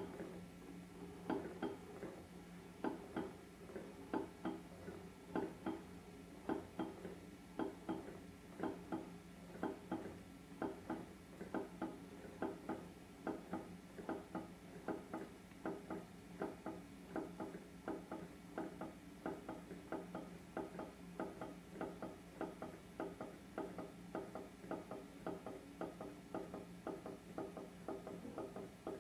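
Glass saucepan lids tipped onto their knobs and wobbling on a wooden tabletop, their rims tapping the wood in an uneven patter of about two to three knocks a second, each with a short ring. A steady low hum runs underneath.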